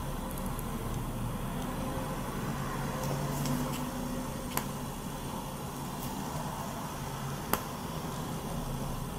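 Handling of a phone in a Nillkin flip-cover case, with two short sharp clicks, the first about four and a half seconds in and the second about three seconds later, over a steady low background hum.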